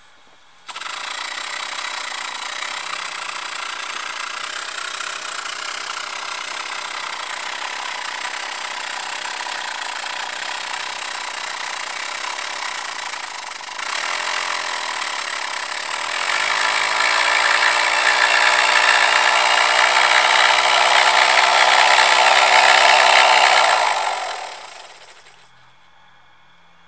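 Tiny all-paper pneumatic micro motor running on air: a rushing hiss with a fast, steady buzzing whir. It steps up louder and faster about halfway through and again a couple of seconds later, then dies away near the end as the air is cut.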